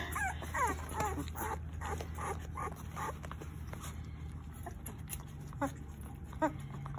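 Young bottle-fed puppies whimpering with short, repeated high squeaks, busiest in the first three seconds and then only a few scattered ones.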